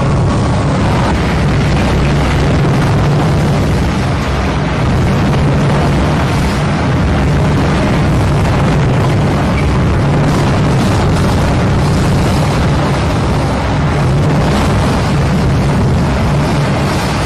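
Hurricane-force wind buffeting the microphone: a loud, steady rushing noise, heaviest in the low end, that keeps on without a break.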